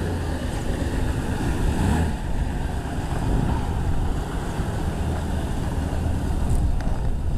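A vehicle engine running steadily with a low rumble, with wind noise on the microphone.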